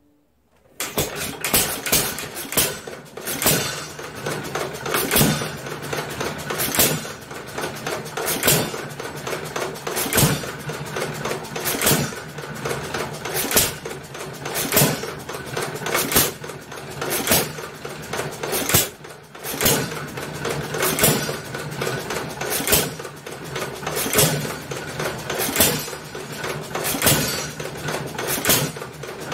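Restored Nelson Brothers hit-and-miss engine, running on battery-and-coil ignition, catches about a second in and runs. It fires with a sharp bang about every one and a half to two seconds, with a steady mechanical running noise between the firings.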